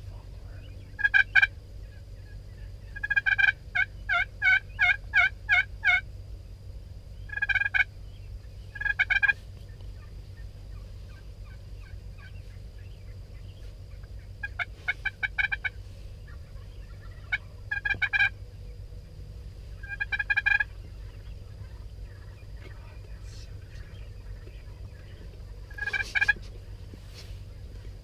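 Wild turkey gobblers gobbling repeatedly, about ten loud, rattling gobbles, with a quick run of several in a row a few seconds in. A steady low rumble runs underneath.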